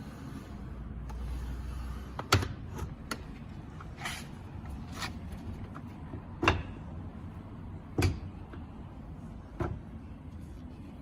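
Hitachi C8FSH sliding miter saw worked by hand with the motor off: sliding and scraping of its mechanism with several sharp knocks, the loudest about two and six and a half seconds in.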